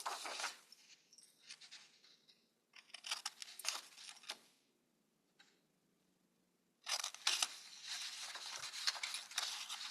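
Scissors cutting through paper in runs of quick crisp snips, with a pause of about two seconds in the middle before a longer run of cutting.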